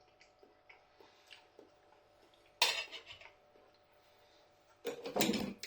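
Cutlery clinking against a plate: faint small taps, one sharp clink about two and a half seconds in, and a few more knocks near the end.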